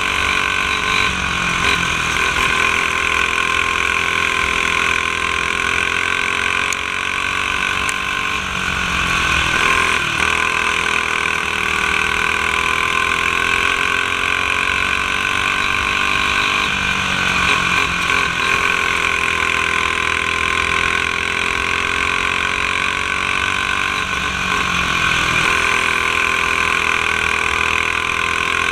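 Racing go-kart's single-cylinder four-stroke clone engine, with a blue restrictor plate, running hard on track. Its pitch dips and climbs back about every eight seconds as the kart slows for the corners and accelerates out.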